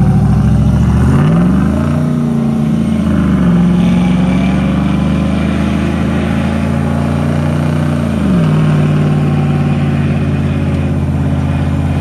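V8 engines of lifted Jeeps revving hard under load as they pull against each other in a tug of war on snow. The revs climb about a second in, hold high with a brief dip, then drop back about eight seconds in.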